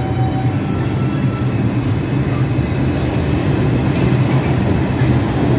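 New York City subway train pulling out of a station platform, its motors and wheels running steadily as it moves off.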